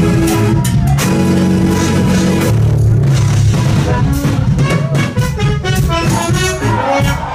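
Live jazz-fusion band playing loud, with drum kit, bass and horns: sustained chords at first, then short repeated stabs from about three seconds in.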